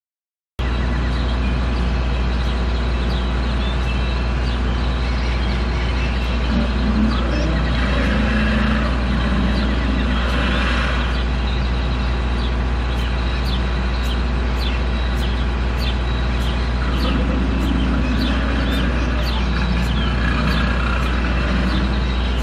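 Outdoor ambience: a steady low rumble, with faint distant voices and short bird chirps over it, starting abruptly half a second in.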